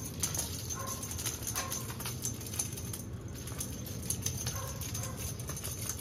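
Kittens' paws and claws pattering and skittering on a tile floor and cardboard scratcher during play, several quick light taps a second, over a steady low hum.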